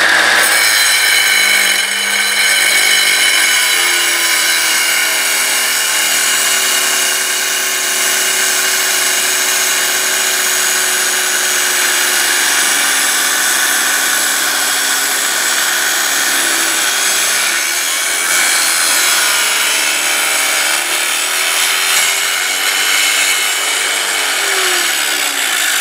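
Wet tile saw cutting through a calcite rock, its motor and blade whining steadily while water runs onto the blade. The lower grinding tone wavers and bends in pitch during the second half as the rock is pushed into the blade.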